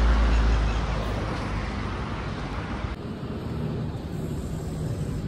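Road traffic noise with a low rumble, loudest in the first second, that changes abruptly about three seconds in to a quieter background with a faint steady hum.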